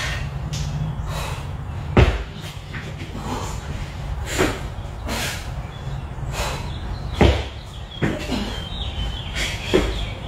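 A pair of 25-lb dumbbells thudding down on a workout mat during dumbbell snatch burpees: two heavy thumps about five seconds apart, with fainter knocks between them. A steady low hum runs underneath.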